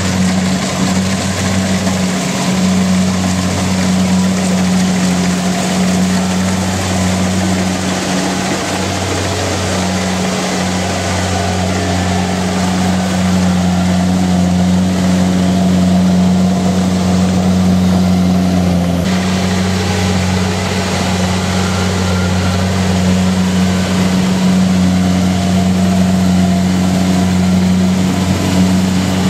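Kubota DC-70 Plus combine harvester's diesel engine running steadily at high revs, with a constant low drone; the hiss of the machinery above it eases about two-thirds of the way through.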